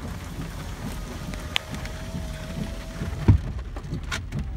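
Storm rain and hail drumming on a truck's roof and windshield, heard from inside the cab as a steady low rumble. A single loud thump comes about three seconds in.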